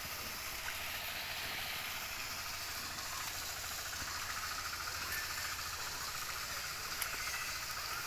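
Steady hissing outdoor noise, with a few faint taps.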